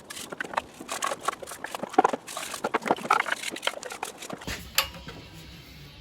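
Irregular scraping and clicking of a cylinder head being scrubbed clean of black carbon and oil build-up. About four and a half seconds in it stops and a low steady hum takes over.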